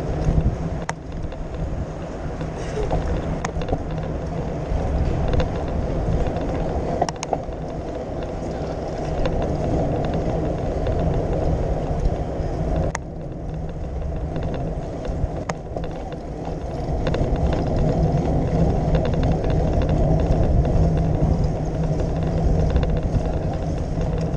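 Riding noise from a bicycle on a paved city bike lane: a steady rumble of wind on the microphone and tyres on the pavement, with street traffic passing alongside and a few sharp clicks from bumps or rattles.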